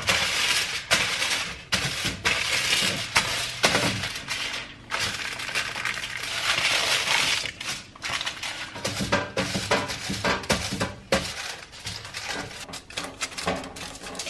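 Aluminium foil crinkling and crackling as it is pressed flat over a baking tray and crimped around the tray's rim. A quick run of sharp crackles, densest in the middle.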